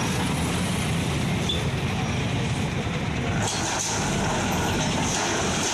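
Diesel engine of a backhoe loader running steadily as it works on a demolition.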